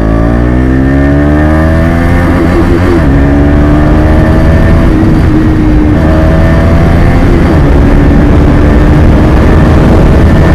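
KTM Duke 250's single-cylinder engine running through an SC Project aftermarket exhaust, rising in pitch as it accelerates over the first couple of seconds, then holding a steady, slowly climbing note.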